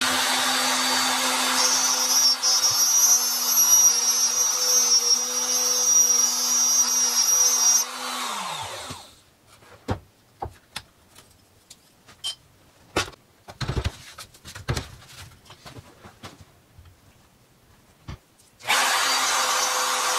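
Compact router running and cutting wood along an acrylic bow-tie template, then switched off and winding down about eight seconds in. About ten seconds of quiet follow, with scattered knocks and clicks of handling, before a Bosch compact router starts up again near the end and runs steadily.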